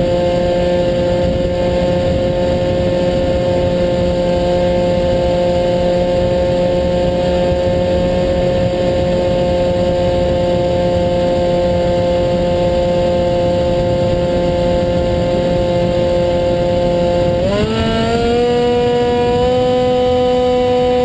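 Electric motor and pusher propeller of an HK Bixler model plane, heard from the camera on board, humming at a steady pitch over rushing air, then stepping up to a higher pitch about seventeen seconds in.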